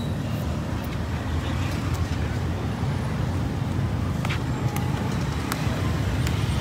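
Street traffic: motor scooters and cars passing, making a steady low rumble, with a few faint clicks.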